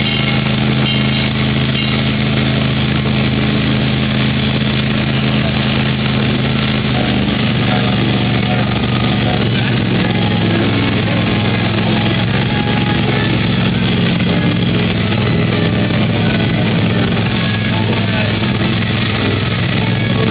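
Miniature kiddie train's engine running steadily while the train rolls along, heard from on board. About seven seconds in, its hum turns less even and wavers in pitch.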